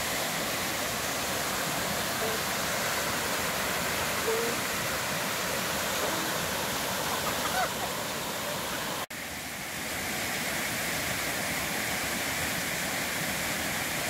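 Steady rush of a small mountain waterfall and the shallow stony stream below it, with a momentary gap in the sound about nine seconds in.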